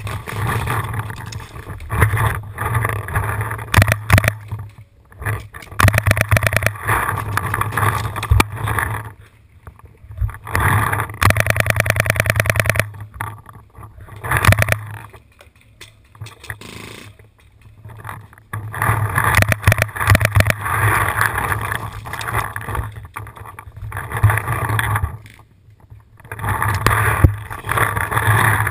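Paintball marker firing: scattered single shots, and a rapid burst of about ten shots a second lasting roughly two seconds about eleven seconds in. Around the shots runs the noise of the player moving, with knocks and rubbing from the marker-mounted camera.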